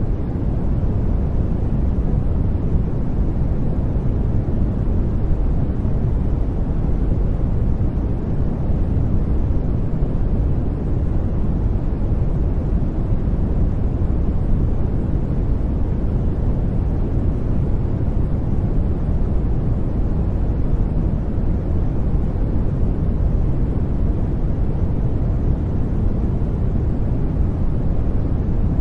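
Steady, deep rushing noise with little hiss, a background noise track of the kind sold as white noise, holding an even level.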